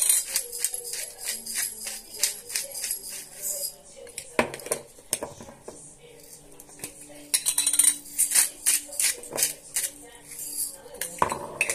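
Hand-twisted pepper mill grinding peppercorns: a rapid run of gritty clicks, in two spells of about three to four seconds with a quieter gap between.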